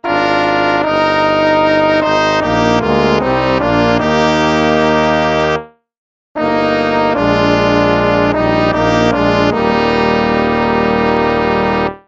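Instrumental background music with a melody of held, pitched notes. It breaks off for about half a second midway, then resumes and stops abruptly at the end.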